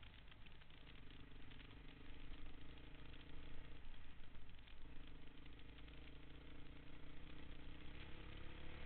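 Honda dirt bike engine running while the bike is ridden, with rattling over rough ground. The engine note holds steady, breaks up briefly about four seconds in, then settles to a steady note again.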